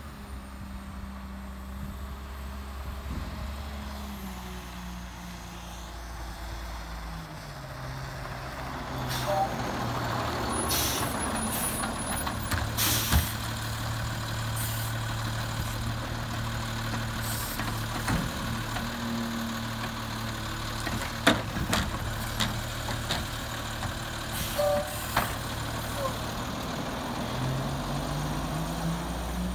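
2009 Autocar Autoreach automated side-loader garbage truck: its diesel engine slows as it pulls up, then runs steadily while the automated arm grabs, lifts and empties a cart, with several clanks and a short hiss. The engine speeds up again near the end as the truck moves off.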